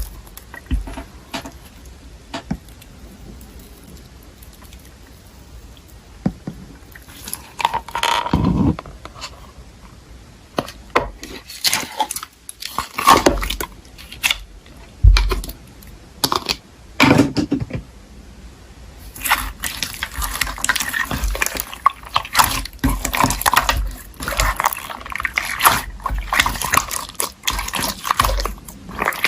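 Slime being squished and pressed by hand, making irregular sticky clicks. The clicks are sparse at first and come almost continuously from about two-thirds of the way in.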